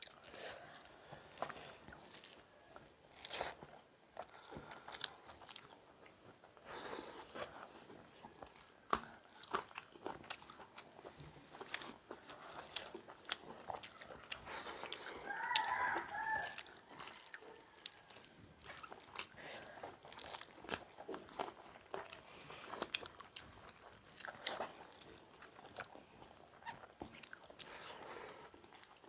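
Close-up eating sounds: chewing and mouth smacks, with fingers mixing rice and curry on steel plates, as a steady run of small irregular clicks. About halfway through, a short call lasting about a second and a half stands out as the loudest sound.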